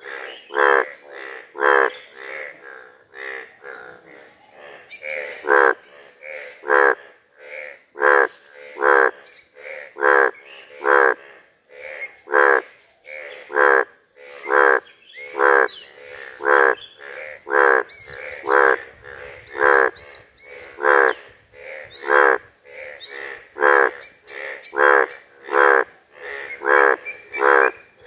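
Male Indian bullfrog croaking, its vocal sac puffing out with each call: loud, short croaks repeated about once a second, with fainter croaks in between.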